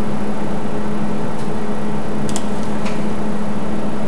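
Steady low hum under constant hiss, with a few faint ticks around the middle.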